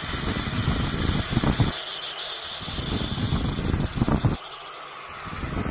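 Sound effect of big ocean waves: a steady hissing wash with three deep, rushing surges that build and fall away.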